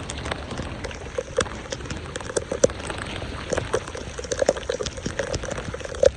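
Water splashing and gurgling, with many irregular plops and sharp drips.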